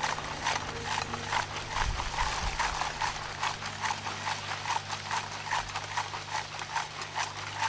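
Lumps of charcoal rattling and clinking against each other and a plastic crate as it is shaken to sift out the dust, in quick irregular knocks several times a second, over a steady low hum.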